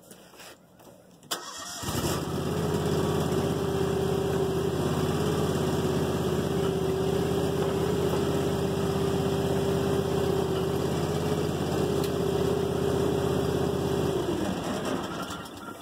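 John Deere X739 garden tractor's V-twin engine started and running steadily for about twelve seconds, then shut off and winding down near the end.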